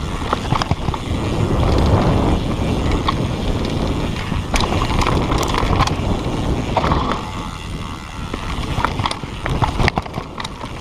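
Mountain bike riding fast down a dirt trail: a continuous rush of wind on the microphone and tyre noise, with scattered sharp rattles and clicks from the bike over the bumps.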